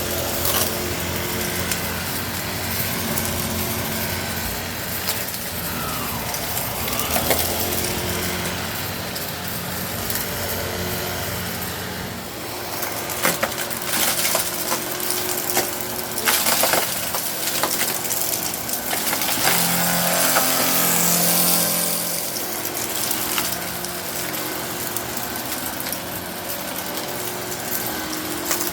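Eureka Innova NEU700 upright vacuum cleaner running, its brushroll sucking up aquarium gravel that clicks and rattles up through the machine over a steady motor hum. The crunching and rattling come in louder, denser bursts in the second half.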